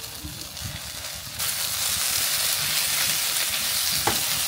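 Tomato, onion and courgette sauce frying in a non-stick pan as mackerel is added and stirred in with a spatula. The sizzle turns much louder about a second and a half in, with the spatula scraping underneath.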